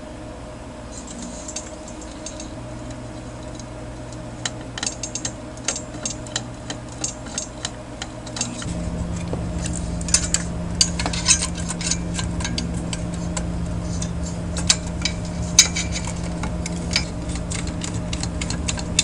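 Light irregular clicks and clinks of hands handling metal parts and a circuit board in an open amplifier chassis, over a steady low hum that gets louder a little before halfway.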